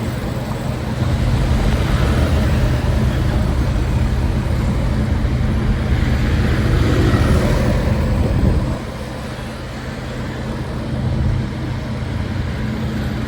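Street traffic: a motor vehicle's engine running close by with a steady low hum, dropping off suddenly about nine seconds in to quieter road noise.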